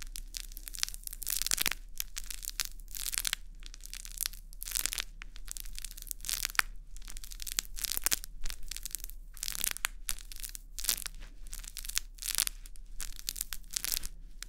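Crinkly plastic sheet inside a small plush cat toy, squeezed over and over by hand, each squeeze a crisp crackle that sounds like something deep-frying.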